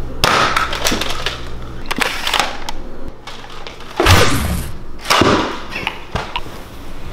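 Several sharp, shot-like blasts and swooshes of a Nerf blaster fight, the loudest about four seconds in, as a hit lands, with a low rumble under parts of it.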